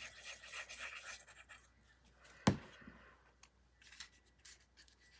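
Faint rustling and scraping of cardstock die-cut pieces being handled and pressed onto a card panel, with one sharp tap about two and a half seconds in and a few faint ticks after.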